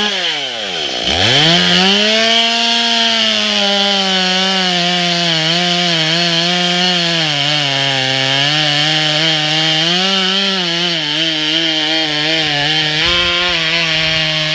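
STIHL MS 180 C two-stroke chainsaw: about a second in the engine drops almost to idle and revs straight back up, then runs at high speed with its pitch wavering under load as the chain cuts through a tree trunk.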